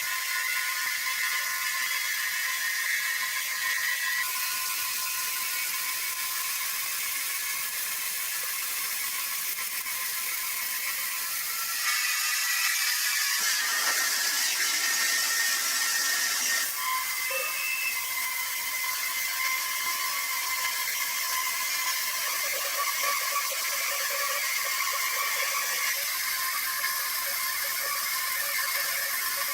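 Sawmill machinery running with a steady high-pitched whir and squeal. The sound changes abruptly a few times as one machine sound gives way to another.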